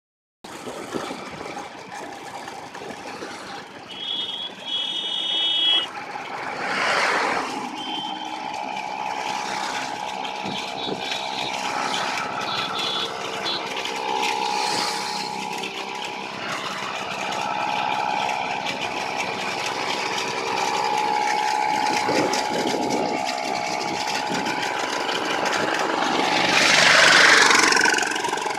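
Small engines running steadily while riding along a road: the engine-fitted bicycle and the motorcycle filming it, with wind and road rush. A brief high-pitched tone sounds about four seconds in, and a passing vehicle swells loudest near the end.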